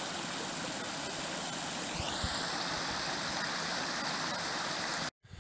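Small stream rushing out of a stone culvert and splashing over a jam of branches: a steady water rush that cuts off suddenly near the end.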